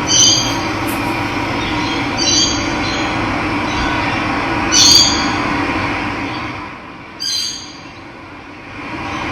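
Running water rushing steadily while a bird gives a short, high call four times, about every two and a half seconds. The water sound drops lower for a couple of seconds near the end, then comes back up.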